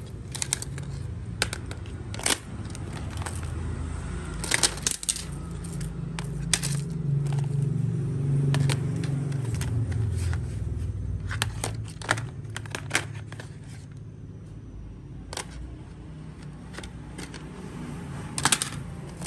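Broken smartphones clacking and scraping against one another and a plastic crate as a hand rummages through the pile, in irregular clusters of clicks, the loudest about four seconds in and near the end. A steady low rumble runs underneath.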